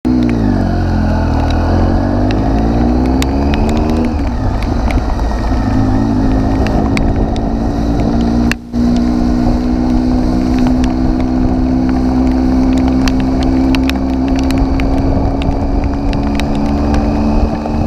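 Triumph Tiger 800 XC's three-cylinder engine running as the motorcycle rides, its pitch falling and rising as it slows and picks up speed, then holding steady in the second half. Many sharp ticks of hail strike the bike and camera throughout, and the sound cuts out for a moment a little past halfway.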